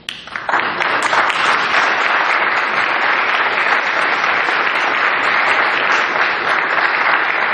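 Audience applause that breaks out all at once and holds steady, many hands clapping together.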